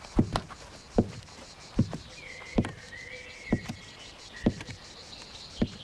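Slow footsteps, about one knock a second, on a hard floor, with a faint high whistling tone in the middle.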